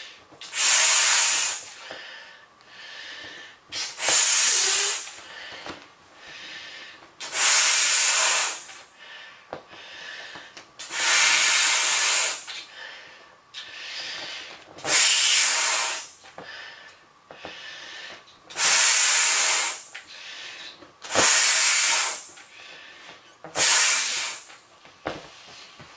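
A large vinyl beach ball being blown up by mouth: about eight long exhales rush air into its valve, a few seconds apart, with quieter breathing between them.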